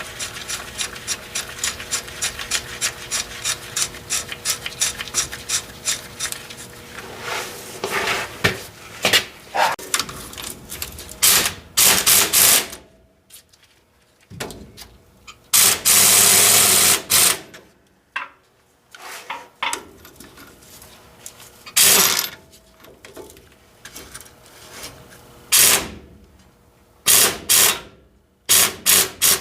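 A hand ratchet wrench clicking in a fast, even run as nuts are run down onto new U-bolts on a truck's rear leaf spring, then irregular metal clanks and scrapes of the tools and hardware, with one longer burst of noise about sixteen seconds in.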